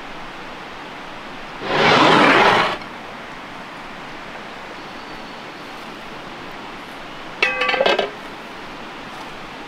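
Metal lid of a cauldron clanking and ringing briefly as it is lifted off, near the end, over a steady outdoor hiss. About two seconds in there is a louder burst of rushing noise lasting about a second.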